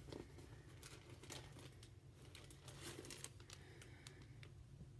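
Faint, scattered crinkling and rustling of a clear plastic zip-top bag being handled, over a low steady room hum.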